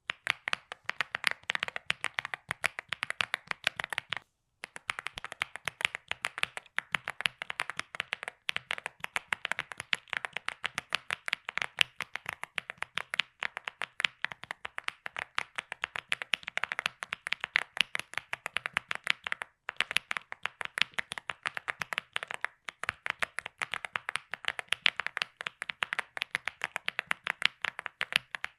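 Mechanical keyboard with Gateron Baby Kangaroo 2.0 tactile switches being typed on fast and steadily, a dense run of keystroke clacks with a few brief pauses.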